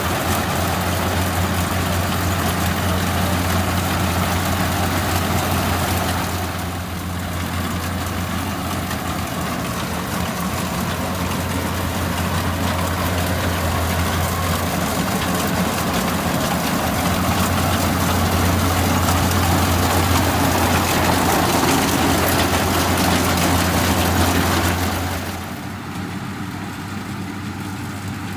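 Rice combine harvester's diesel engine running steadily with a deep, even hum. The sound dips briefly about six seconds in and drops to a lower level near the end.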